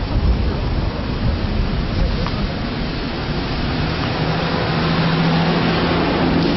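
Motor vehicle running close by, heard as a loud, even rumble with wind-like noise on the microphone; a steady low engine hum comes in about four seconds in.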